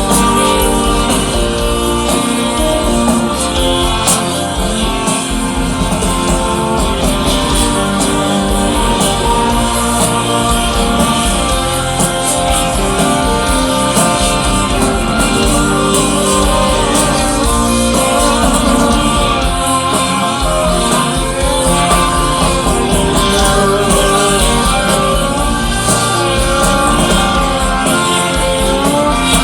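Live full-band rock music: electric guitars, bass and drums playing an instrumental stretch, with wordless vocals over it.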